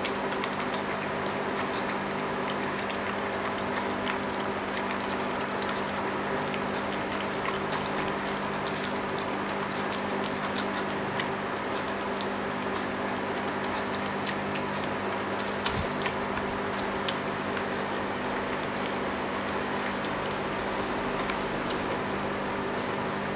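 Miniature schnauzer lapping and chewing wet, mushy raw food from a stainless steel bowl: steady wet slurping with many small scattered clicks, over a constant hum.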